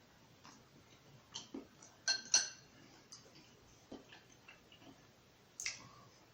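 Eating utensil clinking against a dish, with two sharp clinks about two seconds in that ring briefly, then another clink near the end, among scattered small clicks.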